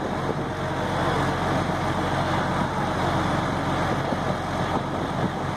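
A large vehicle engine idling steadily, a low even hum with street noise around it.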